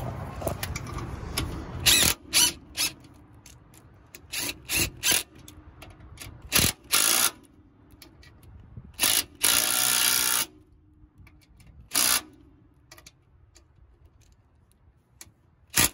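Cordless power driver with a socket and extension running a nut down onto a new shock absorber's stud in short trigger bursts, about a dozen in all, the longest lasting about a second near the middle.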